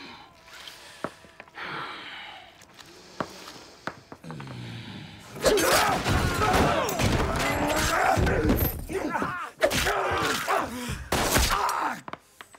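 Brawl sound effects: a few scattered knocks at first, then from about five seconds in a dense run of punches, thuds and crashes with smashing glass, mixed with men's grunts and shouts.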